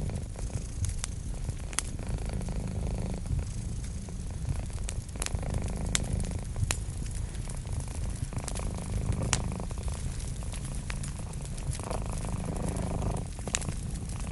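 Cat purring steadily, swelling in slow cycles about every three seconds, over the crackle of a wood fire with sharp scattered pops.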